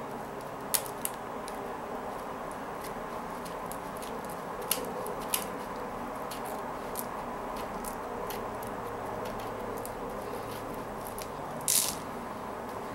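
Plastic pony beads and cord of a kandi peyote panel being handled, giving a few sparse small clicks over a steady background hum. About a second before the end comes a short, louder scraping rustle.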